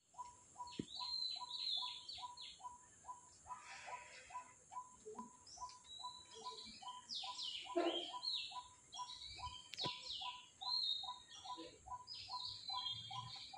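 Several birds calling in the trees: a busy mix of high chirps and falling notes over a lower note repeated evenly about two and a half times a second. A single sharp click about ten seconds in.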